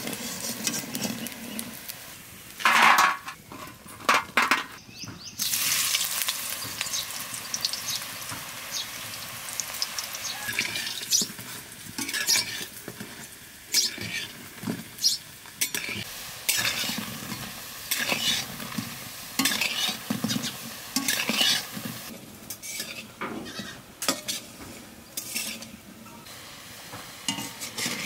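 Wire-mesh skimmer scraping and clinking against an aluminium kadai as semolina laddoos fry in shallow oil with a light sizzle. A brief louder sound comes about three seconds in.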